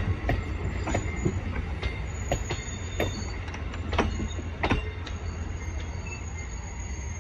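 Amtrak passenger train rolling past, its wheels clicking sharply over rail joints every half second to a second above a low, steady rumble, with a thin, high wheel squeal held throughout.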